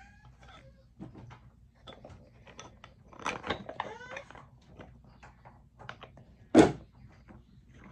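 Wooden pieces of a Melissa & Doug toy tool kit clicking and knocking against each other as they are handled and fitted onto the wooden tool box, with one loud sharp wooden knock about two-thirds of the way in.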